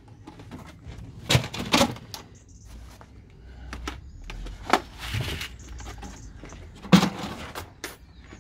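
Sand tipped from builder's buckets into a galvanised metal dustbin: several short loud scrapes and knocks of the bucket against the bin, with a longer rush of pouring sand about five seconds in.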